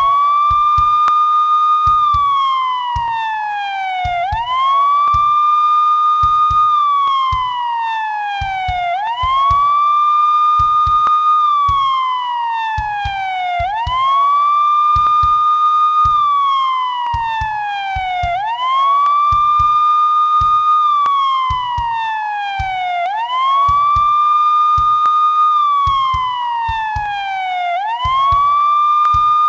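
Police siren on a slow wail: each cycle climbs quickly, holds its top note for about two seconds, then slides slowly back down, repeating roughly every five seconds, about six times here. Faint irregular low thumps sit underneath.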